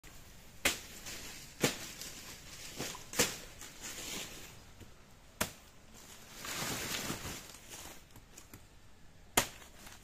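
Five sharp chopping strikes at uneven intervals, most likely a blade cutting into a banana plant's soft stalk. A stretch of rustling dry leaves and straw comes between the fourth and fifth strikes.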